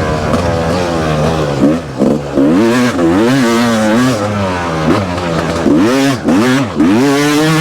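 Yamaha YZF four-stroke dirt bike engine revving up and falling back again and again as the throttle is worked on the track, with short drops in between.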